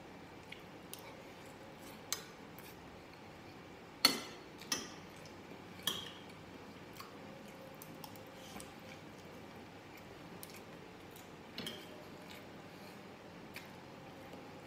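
Metal spoon and fork clinking against glass bowls and a plate while eating, a few separate sharp clinks with short rings, the loudest about four seconds in.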